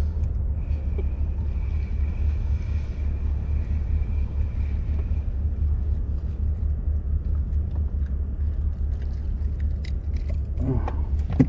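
A steady low rumble, with a few faint light clicks near the end as metal pliers work a hook out of a grouper's mouth.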